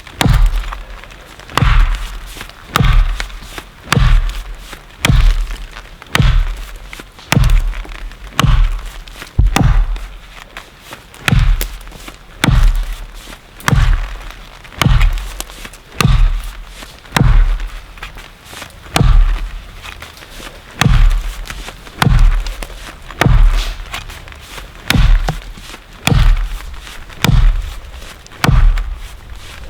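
Axe blows striking a standing tree trunk in a steady rhythm, about one a second, each a sharp knock with a low thud: the back cut, chopped just above the notch to fell the tree.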